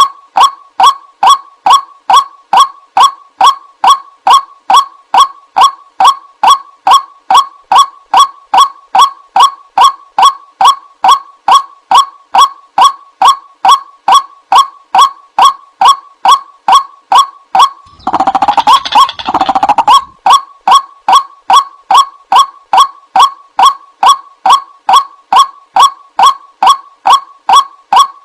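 White-breasted waterhen lure call: a short, nasal 'kwak' note repeated evenly about two and a half times a second. About eighteen seconds in, a louder, harsher call of about two seconds breaks in before the steady notes resume.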